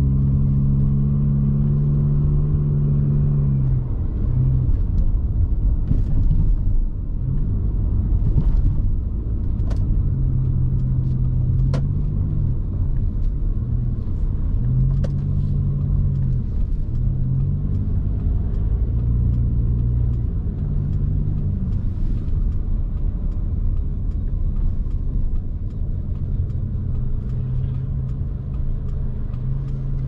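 Car driving on a city road, heard from inside: a steady low engine and road rumble, with low humming tones that change pitch in steps every second or two.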